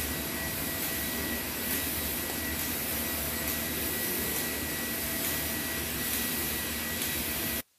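Steady machine noise from UV flatbed printers running, their fans and vacuum suction whirring evenly, with a faint high steady tone. It cuts off abruptly near the end.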